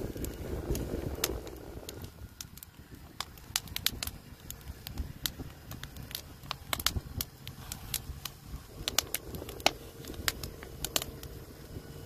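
Wood fire crackling, with irregular sharp pops from the burning logs. A low rumble of wind on the microphone is heard in the first couple of seconds.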